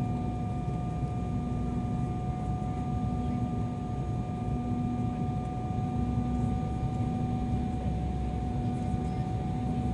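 Cabin noise inside an Embraer 190 jet airliner on its approach: a steady rumble and rush of air from the airflow and the twin General Electric CF34 turbofans, with a steady high whine and a low hum that comes and goes every second or so.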